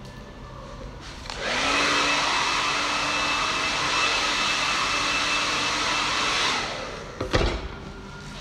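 Hair dryer switched on about a second in: its motor pitch rises and then holds steady over a loud hiss of air. After about five seconds it is switched off and winds down. A couple of sharp knocks follow near the end.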